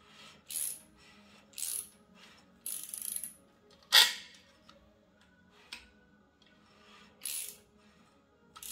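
Metal tools and parts being handled: a string of short clinks and rattles, with one sharp metallic clack about four seconds in.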